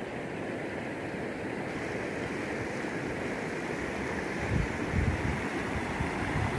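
Rushing floodwater of a rain-swollen river, a steady noise growing slightly louder. Two low thumps come about four and a half and five seconds in.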